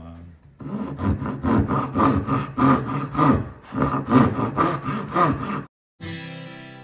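Tenon saw cutting a dovetail in timber by hand, a steady run of strokes at about two a second. It cuts off suddenly near the end and music begins.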